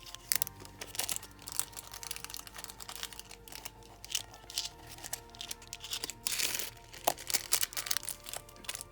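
Small plastic packaging crinkling and rustling in irregular bursts as it is handled, over soft background music.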